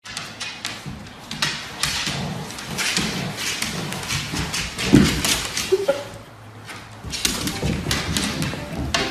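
Two dogs playing tug-of-war with a fabric blanket on a wooden parquet floor: scuffling, paws and claws clicking and scraping on the wood, and fabric dragging, with a loud thump about five seconds in.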